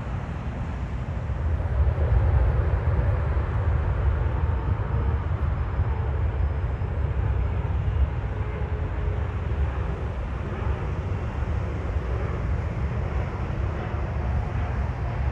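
Steady low rumble of road traffic mixed with the engines of a jet on final approach to land.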